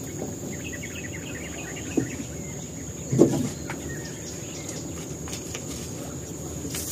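Open-air riverside ambience: birds chirping faintly and a steady high-pitched insect drone. A light knock about two seconds in and a louder thump about a second later come from handling on the boat.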